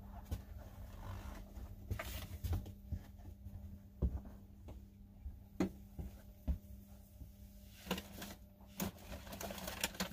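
Scattered light knocks, clicks and rustles of someone handling things in a small van interior, over a steady low hum.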